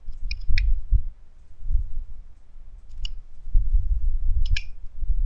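A few scattered computer keyboard keystrokes, sharp clicks spaced a second or more apart, over a low rumble.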